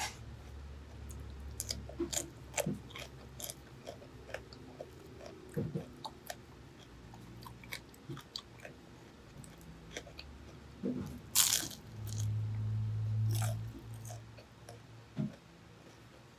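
Close-miked crunchy biting and chewing of a battered, deep-fried seaweed-and-vermicelli roll: scattered crisp crunches, with one loud crunching bite about eleven seconds in. A low steady hum follows for about two seconds.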